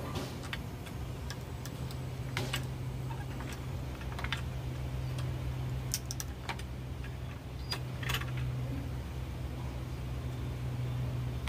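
Irregular sharp clicks and cracks from pangi (kepayang) seed shells being cracked and prised open in a hand-lever steel tool, with shell pieces handled and dropped, over a steady low hum.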